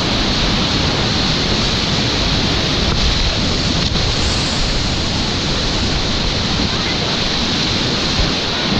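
Whitewater rapids rushing, loud and steady, heard from a kayak in the middle of the rapid.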